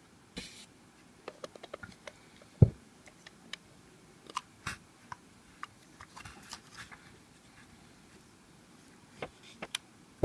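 Handling noise from a GoPro Hero+ in its clear plastic housing: scattered plastic clicks and taps as the housing's latch and back door are worked, with one louder knock about two and a half seconds in.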